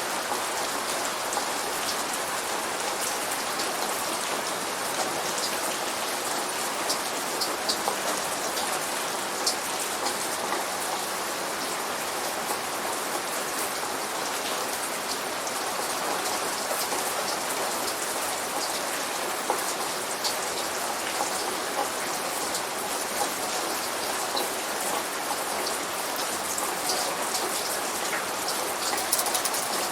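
Steady light rain falling, an even hiss with many small drops ticking sharply on a surface; no thunder.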